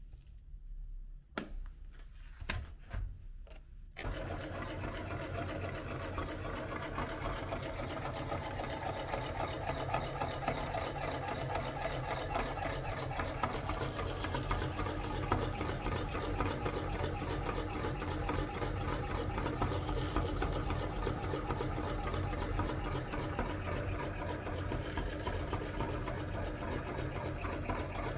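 For the first few seconds, a few soft clicks as hands scoop water-gel beads in a plastic tray. Then, about four seconds in, a belt-driven meat grinder starts running steadily as it grinds the beads and forces them out through the cutting plate.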